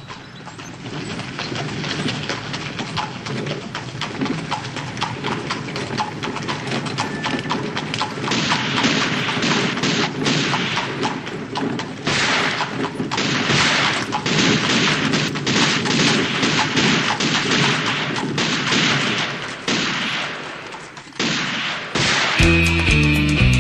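A dense, continuous barrage of sharp cracks and thuds from a sound-effect recording, growing louder over the first few seconds. About 22 seconds in it gives way to rock music with electric guitar.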